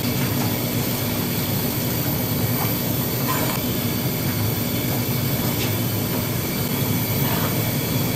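Steady low mechanical hum of running machinery, with a few faint clinks.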